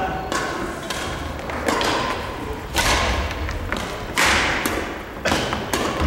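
Badminton doubles rally: rackets striking the shuttlecock in sharp cracks every second or so, with players' shoes thudding on a wooden gym floor.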